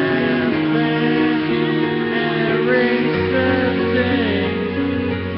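Music: a karaoke backing track playing through the PA, with a man singing along into a microphone.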